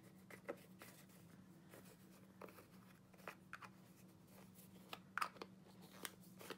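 Near silence with faint scrapes and light taps of a metal palette knife spreading texture paste on a glass craft mat, over a low steady hum.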